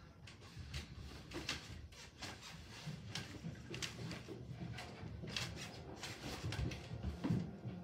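Irregular light knocks, clicks and rustles of a person moving about and handling things in a small room.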